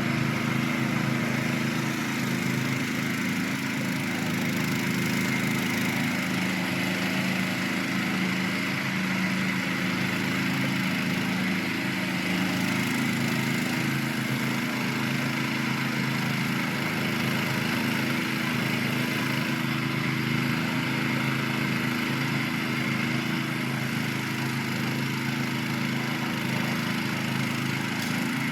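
Small 3-horsepower engine of a homemade zero-turn ride-on lawn mower running steadily as the mower is driven along.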